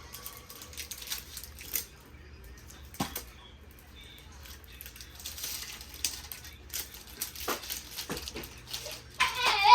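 Blind-bag packaging being torn open and crinkled: scattered rustles, small clicks and a tearing hiss. A high-pitched voice cries out briefly near the end.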